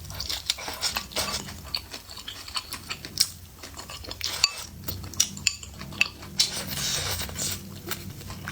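Eating utensils clinking and tapping against a bowl in quick irregular clicks while hotpot and noodles are eaten.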